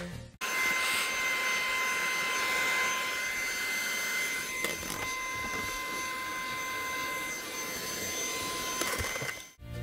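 Steam cleaner running: a steady hiss with a constant high whine, starting about half a second in and cutting off just before the end.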